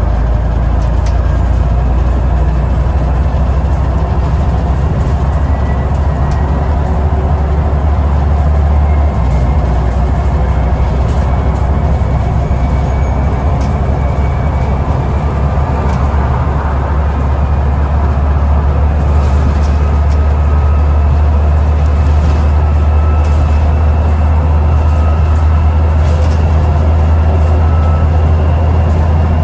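Scania N94UD double-decker bus heard from inside the saloon while under way: a steady diesel engine drone with the whine of its ZF automatic gearbox. The drone shifts in pitch about nine seconds in, and faint rattles come through in the second half.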